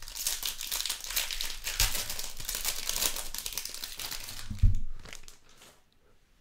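Foil wrapper of a Panini Mosaic football card pack crinkling as it is opened and the stack of cards pulled out. A single thump comes about four and a half seconds in.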